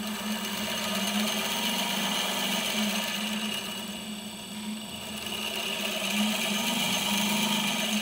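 A ball bearing held against a spinning copper faceting lap, whirring steadily as the lap drives it round, pressing diamond powder into the copper. It grows louder just after the start, eases off midway, then swells again.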